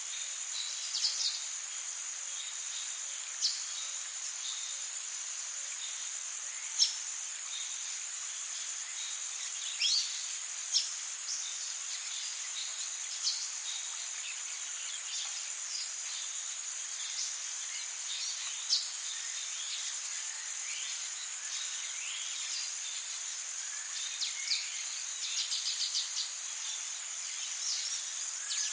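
Tropical rainforest ambience: a steady high-pitched insect drone with many short bird chirps and calls scattered through it, including a quick run of chirps near the end.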